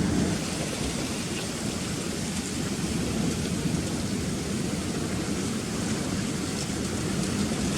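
Steady low rumble of rough surf breaking against rocks, mixed with wind noise.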